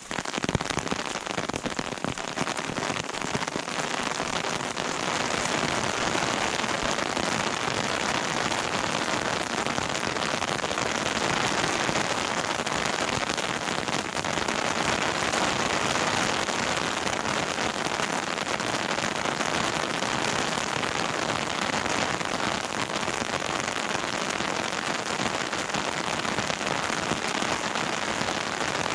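Steady rain falling in conifer forest, with many separate drops ticking close to the microphone.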